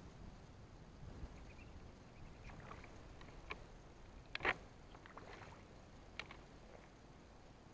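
Splashes and knocks in shallow river water over a low rumble, a few sharp ones with the loudest about four and a half seconds in.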